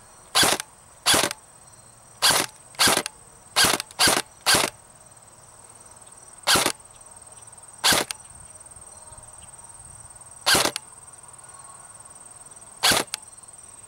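Airsoft electric gun (AEG) upgraded with an M140 spring, firing eleven single shots: seven in quick succession in the first five seconds, then four more spaced a couple of seconds apart.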